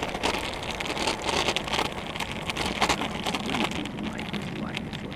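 Kick scooter's small hard wheels rolling fast over rough asphalt: a steady gritty crackle with many small clicks and rattles.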